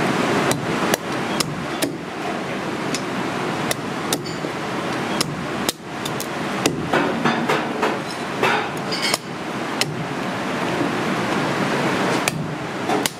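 Heavy cleaver chopping through cooked Alaskan king crab legs on a thick wooden chopping block. Repeated sharp chops come at an uneven pace, about one or two a second, over a steady background hiss.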